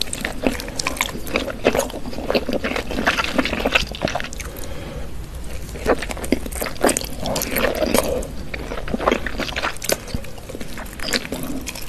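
Close-miked wet chewing and biting of spicy chicken dumplings dressed in chili oil: irregular smacking, squelching mouth sounds.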